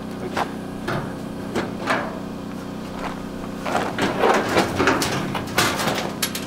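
Sheet-metal dryer cabinet being cut at a corner with hand cutters and pried apart: a few sharp snips and clicks, then a louder run of metal clattering, scraping and flexing near the end.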